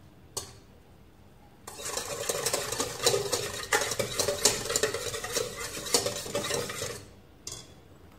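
Small wire whisk stirring fast in a stainless steel bowl of jelly powder and hot water, its wires scraping and ticking against the metal for about five seconds to dissolve the powder. It stops near the end, and there is a single knock just before it starts.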